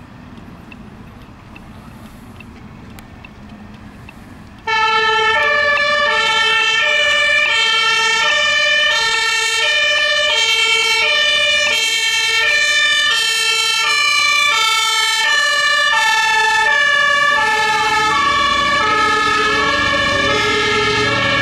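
German two-tone fire-service siren (Martinhorn) switching between a high and a low note about every two-thirds of a second. It starts suddenly about five seconds in, after quieter road and engine noise. Near the end a truck's diesel engine rises under it as the fire engine pulls away.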